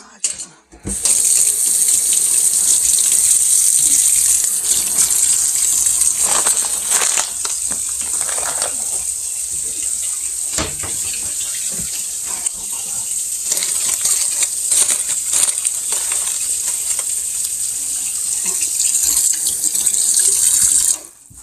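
Kitchen faucet running full into a stainless-steel sink. It is turned on about a second in and shut off near the end, with a few knocks and clinks along the way.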